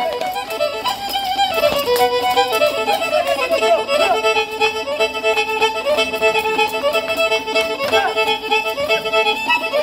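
Lively Romanian căluș dance tune led by a fiddle, playing a fast melody with a quickly repeated note.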